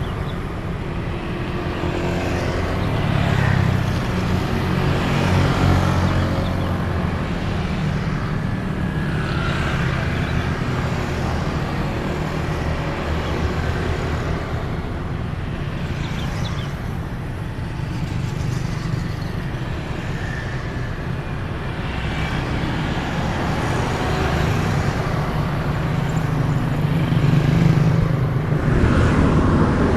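Road traffic: cars and motorcycles passing one after another, with a constant engine rumble that swells and fades as each vehicle goes by.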